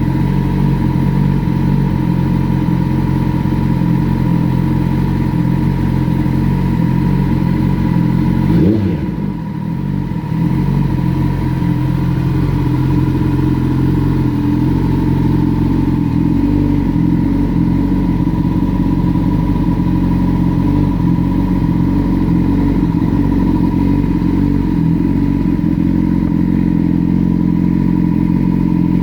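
Kawasaki ZX-10R's inline-four engine running steadily while warming up, with one short throttle blip about nine seconds in, after which it briefly drops quieter before settling back.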